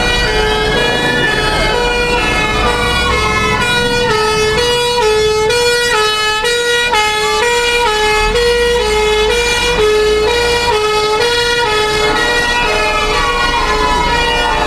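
Sirens of passing emergency vehicles: a wailing siren sweeps up and down, then a two-tone siren alternates between two notes about every half second, and another wail sweeps down near the end.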